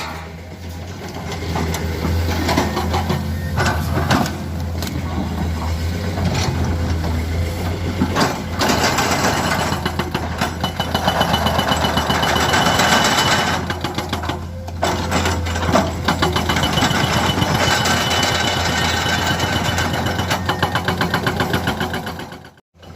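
Heavy diesel construction machinery running under load, a steady low engine hum with a rapid, even clatter over it. The sound cuts out for a moment near the end.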